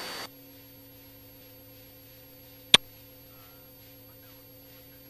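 Faint steady hum on the aircraft's intercom and radio audio line during a pause in the talk. A single sharp click comes a little under three seconds in.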